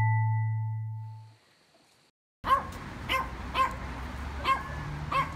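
A synthetic intro tone sounds at once and fades out over about a second and a half. After a short gap, a dog barks five times, spaced about half a second to a second apart, over outdoor background noise.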